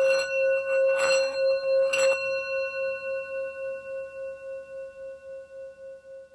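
A struck singing bowl rings out with a steady tone, pulsing about three times a second and slowly fading. Three short noises come about a second apart near the start.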